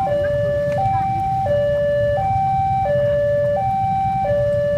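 Railway level-crossing warning alarm sounding a steady electronic two-tone hi-lo signal, switching pitch about every 0.7 s, warning that a train is approaching. A low rumble runs underneath.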